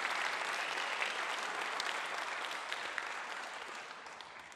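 Concert audience applauding, a dense patter of many hands clapping that fades away toward the end.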